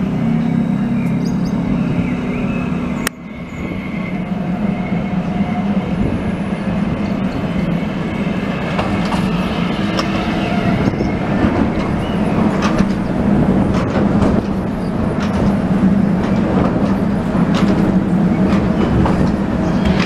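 Translohr rubber-tyred tram approaching and passing close by: a steady low hum from its electric drive, with scattered clicks as it runs along its guide rail.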